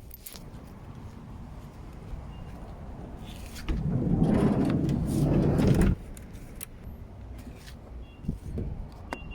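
Diesel fuel pouring into a diesel heater's fuel tank: a rushing flow that runs for about two seconds in the middle, over a steady low rumble.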